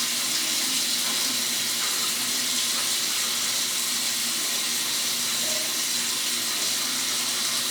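Water running steadily from a sink tap, an even hiss with no breaks.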